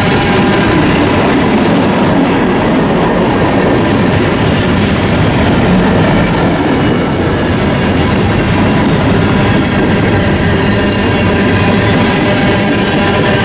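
Freight train cars rolling past on the rails, with steady high wheel-squeal tones over the rumble of the wheels.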